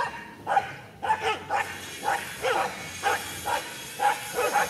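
Dogs barking in a quick run of short barks, about two a second, during a jealous scuffle between dogs.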